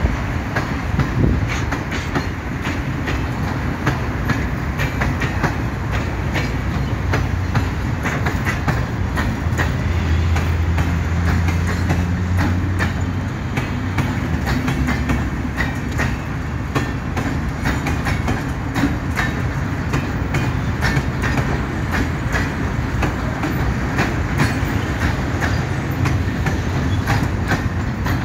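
Stone-loaded freight hopper wagons rolling steadily past, their wheels clicking and clattering over the rail joints in a continuous run.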